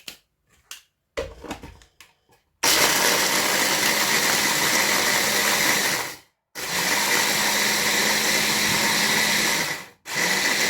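An electric kitchen grinder runs in bursts of about three to four seconds, grinding dry biscuits into crumbs for a cheesecake base. It stops briefly twice between bursts. A few light clicks come before the first burst.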